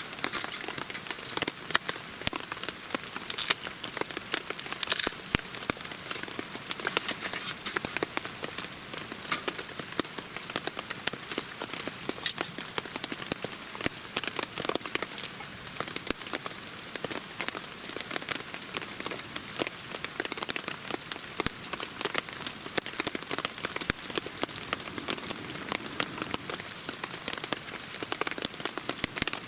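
Steady rain falling, a dense run of small drop impacts.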